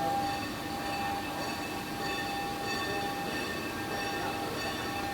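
Industrial machinery running steadily: a constant mechanical hum and rush with several high, held whining tones over it.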